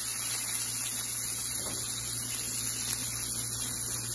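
Chopped shallots and tempering spices sizzling in hot oil in a nonstick frying pan: a steady frying hiss, with a faint low hum underneath.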